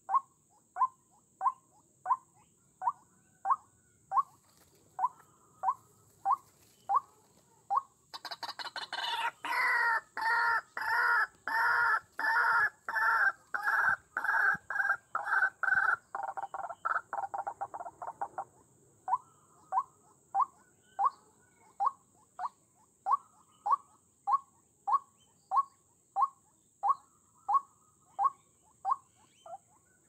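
White-breasted waterhen calling: a short call repeated evenly, somewhat under twice a second, breaking about a quarter of the way in into a louder, rapid run of calls lasting about ten seconds, then settling back into the steady repeated call.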